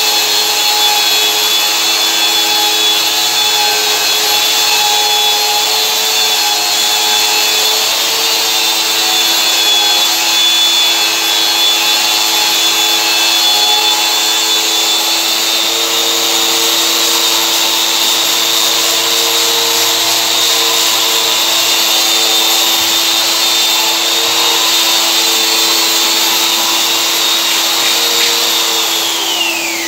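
Long-reach drywall sander running steadily while sanding a wall, together with the dust extractor drawing through its hose. Near the end the sander is switched off and its whine falls in pitch as it winds down, while the extractor keeps running.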